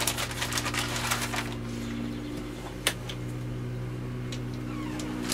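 Plastic zip-top bag crinkling as pork is rubbed around in marinade inside it, for about the first second and a half. Then a single sharp click near three seconds in, over a steady low hum.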